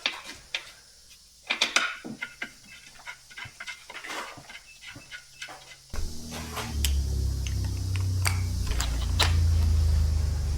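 Metal tools and parts clinking and rattling in a series of light, sharp clicks while the transmission is being bolted in. About six seconds in, a loud, low, steady hum starts suddenly and holds.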